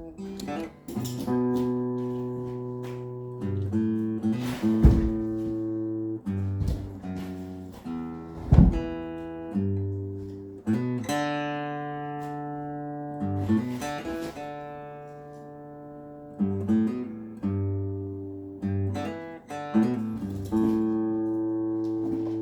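Acoustic guitar music, chords plucked and strummed. A few sharp knocks cut through it, the loudest about five and eight and a half seconds in.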